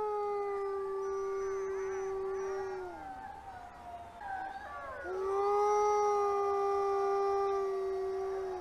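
Arctic wolves howling in chorus. One long, level howl slides down at its end; higher, wavering howls from other wolves fill the gap. About five seconds in, a second long howl holds steady and then drops away near the end.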